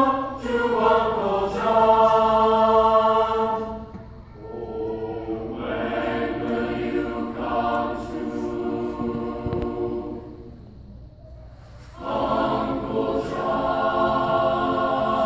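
Mixed choir of high school singers singing in harmony. The singing is full for the first few seconds, grows softer through the middle, drops to a quiet passage about ten seconds in, then swells back to full voice at about twelve seconds.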